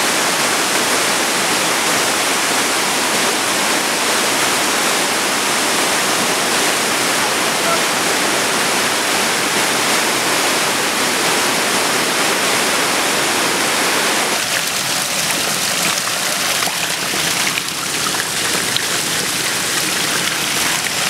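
Swollen, muddy floodwater rushing over stones: a loud, steady wash of water. About two-thirds of the way through it turns thinner and more uneven, with water pouring and splashing through a hoop-framed fish net wedged between rocks.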